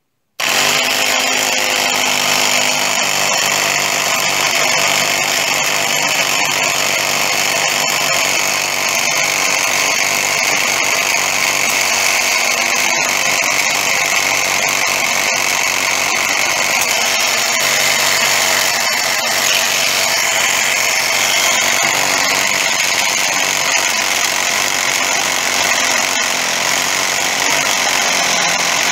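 Small electric piston air compressor running steadily, its outlet blocked so that it pumps up pressure against it. It starts about half a second in and runs without stopping, with a slight change in its whine about two-thirds of the way through.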